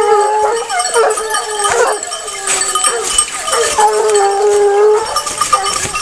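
Scent hounds giving tongue: long drawn-out bays from more than one dog, one held through the first second or so and a longer one from about three and a half to five seconds in.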